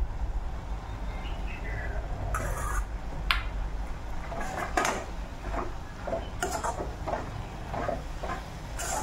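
Steel spoon clinking and scraping against a steel bowl and a steel kadhai as gram flour is tipped in and then stirred into wet chopped coriander, with a handful of sharp, irregularly spaced metal clinks.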